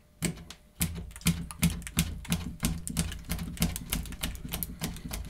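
Harnds Beak folding knife blade chopping rapidly through a plastic straw onto a wooden board: a quick series of sharp clicks, about four or five a second, starting just under a second in.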